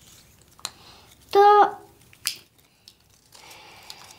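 Paper handling: small clicks and a soft rustle as a boy fiddles with a homemade paper badge. About a second and a half in he gives a short, steady-pitched hum, the loudest sound, followed by a sharp click.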